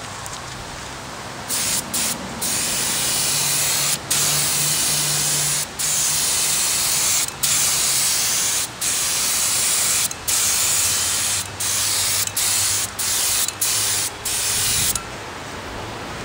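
Gravity-feed paint spray gun hissing as it sprays UV clear coat onto a headlight lens. The hiss comes in a dozen or so bursts of about a second, with brief breaks between them. It starts about a second and a half in and stops about a second before the end.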